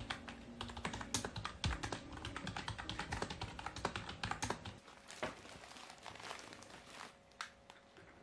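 Fast typing on a keyboard with round, typewriter-style keycaps: a dense run of key clicks that thins to scattered keystrokes about five seconds in and stops near the end.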